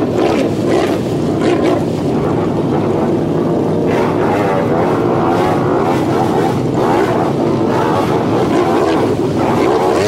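ATV engine running hard under heavy load, its pitch wavering up and down as the four-wheeler churns through deep swamp mud, with the spinning tyres splashing mud and water.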